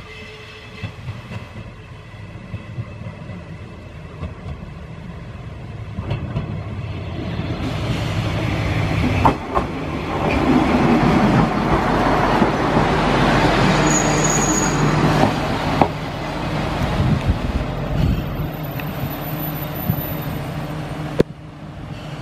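JR Shikoku 1000 series diesel railcar arriving: its engine and wheels on the rails grow steadily louder as it approaches and runs in alongside the platform, with a steady low engine hum underneath. A few sharp clicks and a brief high squeal near the middle sound as it passes close.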